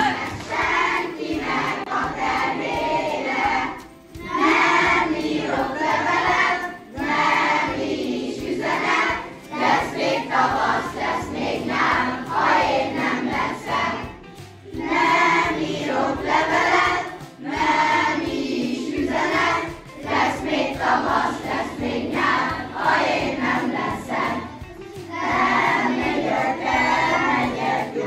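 A group of children singing a song together in chorus, phrase by phrase with short breaks between the lines.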